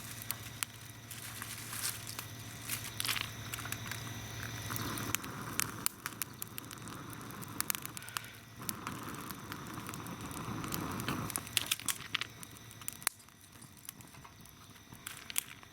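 Dry tinder and kindling crackling and rustling, with many small sharp pops scattered throughout.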